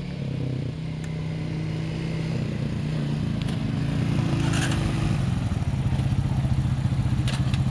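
Honda ATV engines running: a quad drives up, growing louder as it approaches, then slows to a steady idle beside another idling close by. There are a couple of brief clicks.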